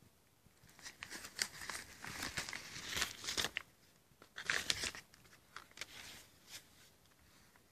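Crinkling and rustling of a bubble-wrap-lined paper mailer as a CD in a plastic jewel case is worked out of it: a run of crackly handling noise lasting about three seconds, another burst at about four and a half seconds, then a few light clicks.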